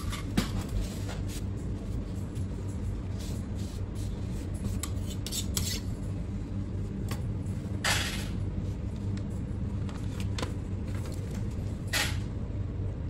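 Food-prep handling sounds over a steady low hum of kitchen machinery: scattered soft rustles, scrapes and light clatter from work at a plastic cutting board with a knife and a cardboard takeout box, with brief louder scrapes about eight and twelve seconds in.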